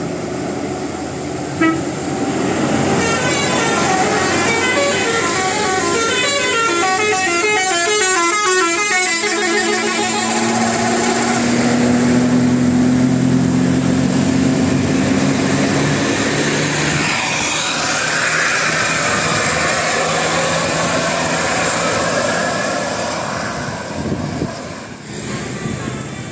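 A bus's telolet-style 'basuri' musical horn playing a fast run of rapidly alternating tones for several seconds, followed by the bus's engine running as it passes.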